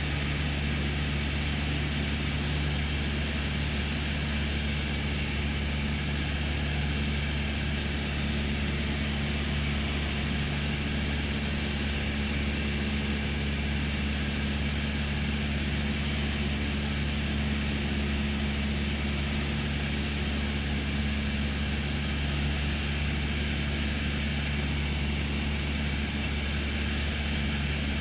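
Piston engine and propeller of a single-engine light aircraft, heard from inside the cabin in cruising flight: a steady, unchanging low drone with airflow hiss over it.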